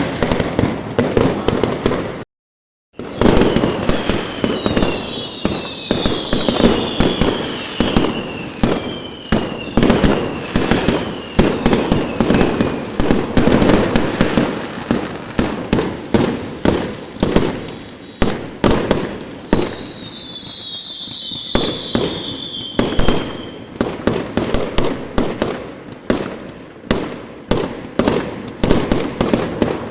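Dense barrage of New Year fireworks: sharp bangs several a second, overlapping without a break, with high falling whistles cutting through twice. The sound drops out completely for half a second about two seconds in.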